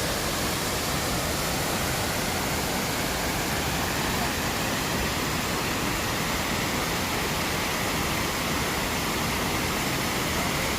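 Waterfall: water falling and splashing in a steady, unbroken rush of noise.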